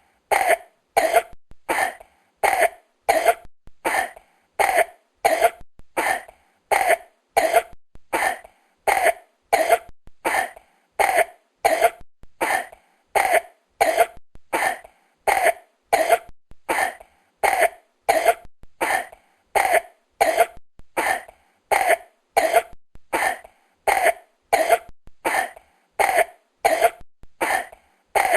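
A person coughing over and over: short, dry coughs repeating at a steady, even pace, about one or two a second.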